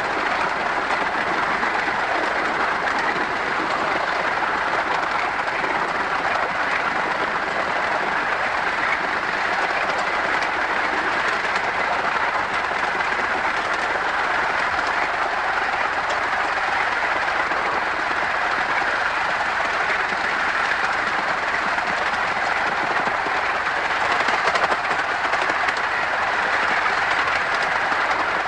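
Miniature 15-inch gauge steam locomotive, RH&DR No.5 Hercules (a 4-8-2), running along the line: a steady, continuous rush of running noise from the locomotive and track, briefly a little louder near the end.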